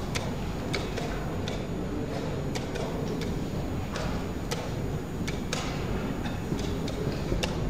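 Irregular sharp clicks and light knocks of wooden chess pieces being set down on the board and chess clock buttons being pressed during a fast game, about a dozen in a few seconds, over a steady low hall hum.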